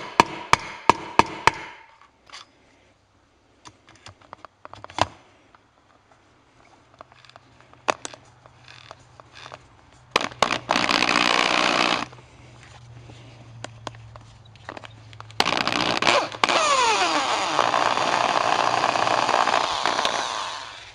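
A hammer tapping a bolt extractor into a drilled-out broken bolt, about five sharp strikes in the first second and a half, followed by scattered handling clicks. Then a drill turns the extractor to back the broken bolt out: a short run of about two seconds, and after a pause a longer run of about five seconds.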